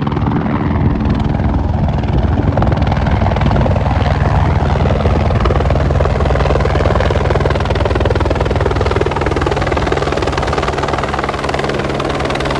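Helicopter running close by: a loud, steady noise of rotor and engine.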